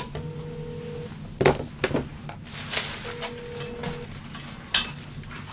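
Telephone ringback tone heard through a phone's speaker: a steady tone lasting about a second, twice, about three seconds apart, while the call waits to be answered. A plastic carrier bag rustles and knocks in between, loudest about a second and a half in.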